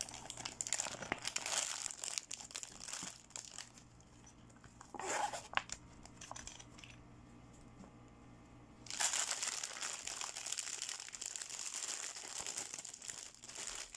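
Thin plastic packaging crinkling and rustling as hands handle an iridescent plastic cosmetic pouch and a clear plastic bag of toy makeup. There are crackly bursts at first and a short burst about five seconds in, then dense, continuous crinkling from about nine seconds on.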